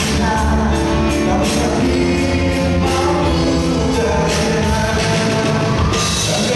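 A band playing a pop song, with a sung vocal melody over drums and other instruments.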